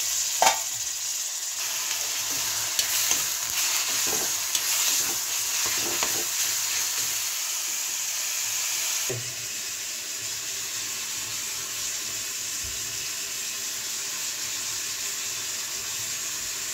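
Tomato and onion masala sizzling steadily in a hot kadhai of ghee and oil, with a steel spoon stirring and scraping against the pan, clinking a few times in the first half. The sizzle carries on a little quieter after about nine seconds.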